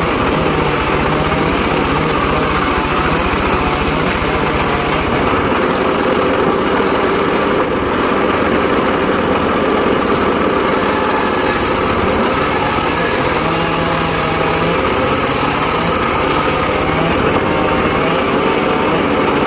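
Homemade circular saw running steadily while sawing sengon laut (albizia) wood, a continuous loud mechanical drone with slight changes in its higher hiss a few times as the cut goes on.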